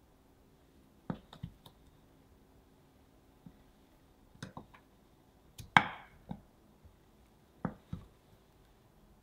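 Kitchen knife slicing through a block of butter and tapping on a wooden cutting board: a handful of short, sharp knocks spaced a second or so apart, the loudest about six seconds in.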